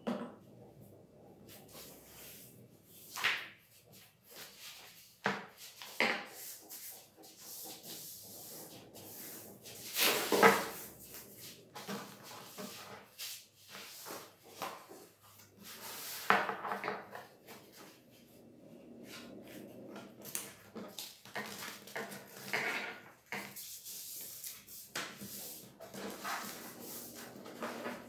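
A large sheet of paper rustling and crackling as it is handled and folded, in irregular bursts with the loudest crinkles about ten seconds in and again around sixteen seconds.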